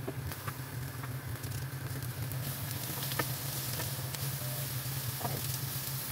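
Prawns sizzling on a hot ridged grill pan, the sizzle growing louder a couple of seconds in. Metal tongs give a few light clicks against the pan as the prawns are turned, over a steady low hum.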